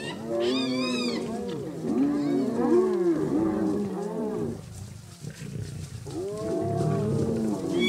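Spotted hyenas and a lion squabbling at a kill: many overlapping rising-and-falling yelps and whoops with lower growling. There is a lull about five seconds in, then the calls build again.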